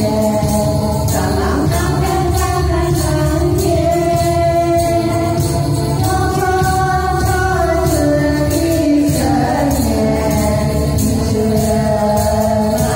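Amateur women's voices singing a Hakka-language song into microphones, amplified over a karaoke backing track, with long held notes. A tambourine is shaken along on the beat.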